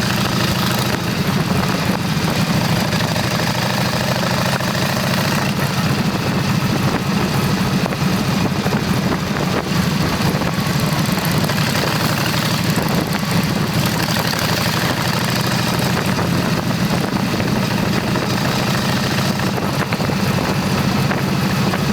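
Motorcycle engine running at a steady pitch, heard from onboard while riding, with rushing air noise over it.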